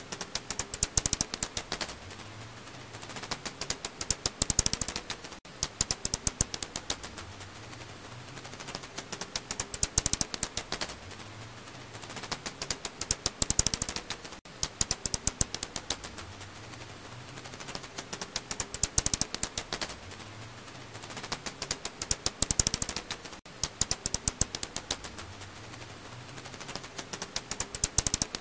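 Black house bat (Hypsugo alaschanicus) calls, heard as rapid trains of sharp clicks. They come in louder bursts about every three seconds, with quieter clicking between.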